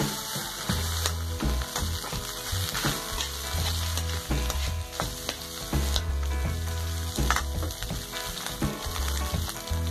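Egg fried rice sizzling in a metal wok while a metal spatula stirs and scrapes it, with irregular sharp knocks of the spatula against the pan.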